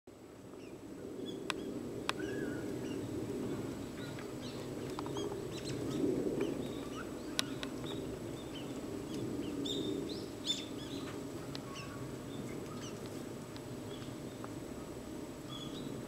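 Wild birds giving scattered short chirps and twitters over steady low background noise, with four sharp clicks along the way.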